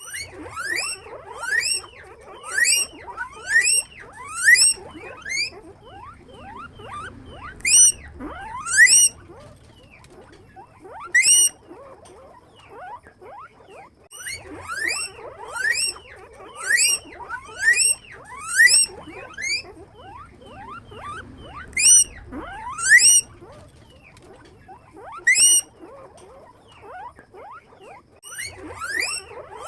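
Guinea pig squeaking: loud, rising squeaks repeated in quick runs of several calls, with short pauses between the runs.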